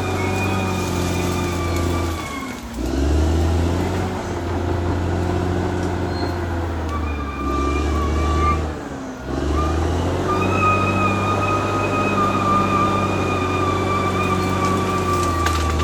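Caterpillar D6R XL bulldozer's diesel engine running hard at working revs with a steady high whine over it. Twice, about two and a half and nine seconds in, the engine note drops sharply and then picks back up.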